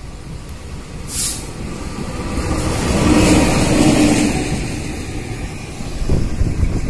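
A CC 206 diesel-electric locomotive running light past at speed, its engine and wheels building to a loud peak about three seconds in with a steady hum, then fading as it moves away. A brief hiss about a second in and a few low thumps near the end.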